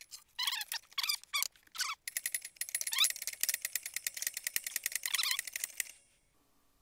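High-pitched sped-up audio from fast-forwarded footage: a few short chirping squeaks, then a rapid chattering of clicks that cuts off suddenly about a second before the end.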